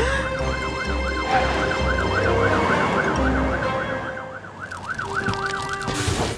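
Cartoon fire-engine siren wailing quickly up and down, about three cycles a second, over background music. A hiss of spraying water starts near the end.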